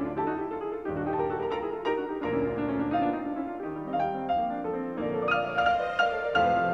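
Background piano music, with a steady run of notes.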